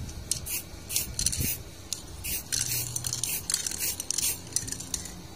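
Aerosol spray paint can sprayed in a quick series of short bursts, about a dozen hisses of varying length.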